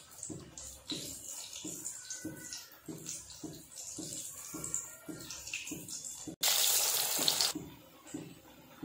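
A hand squelching a boiled egg through thick gram-flour batter in a steel bowl to coat it, in regular wet strokes about three a second. About two-thirds of the way through, a sudden loud hiss lasts about a second and cuts off sharply.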